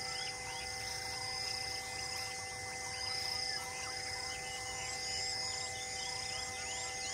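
Forest ambience: insects trilling in steady stretches, with many short bird chirps and whistles over it and a steady drone of held tones underneath.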